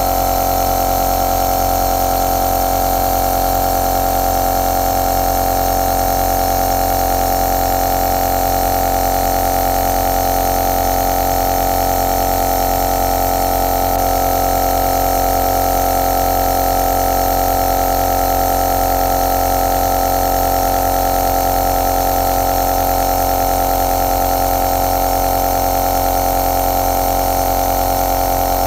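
Home compressor nebulizer running steadily: an even motor hum with a strong held buzzing tone, over a hiss of air.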